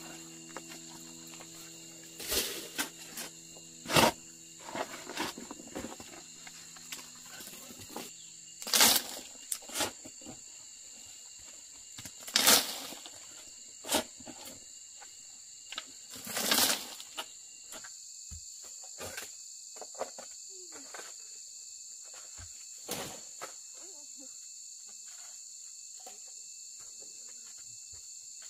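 Insects droning steadily in several high-pitched tones, with scattered sharp knocks and short rustles on top, the loudest about nine, twelve and sixteen seconds in.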